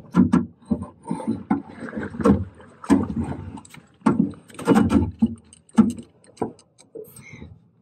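Irregular knocks and thuds in a small open boat while a fish is played on rod and reel, with low rumbling bursts between them.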